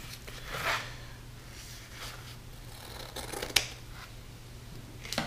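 A wide black elastic band being handled and stretched, giving a few soft rustling swishes and a sharp click about three and a half seconds in, over a steady low hum.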